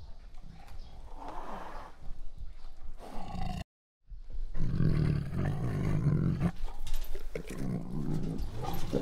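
Tiger growling and roaring. The sound drops out completely for a moment a little before halfway, then comes back louder and lower.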